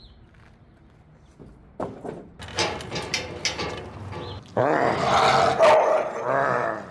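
A dog growling in play, with a long rough growl over the last two seconds, after some scuffling and knocks.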